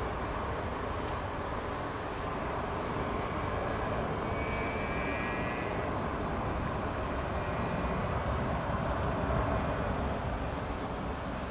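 Airbus A319 jet engines running at taxi power: a steady rush of engine noise that grows a little louder about three-quarters of the way through.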